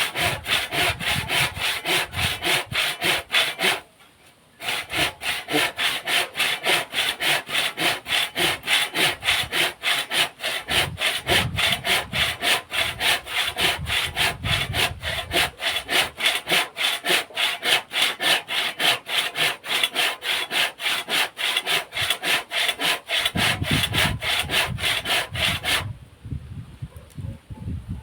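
Hand saw cutting through wood in quick, even back-and-forth strokes, about three a second. The sawing stops briefly about four seconds in, then runs on until shortly before the end.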